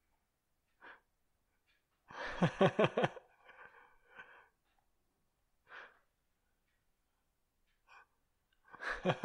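A person laughing briefly, a quick run of ha-ha pulses about two seconds in, with a few soft breaths and mouth noises after, amid stretches of dead silence.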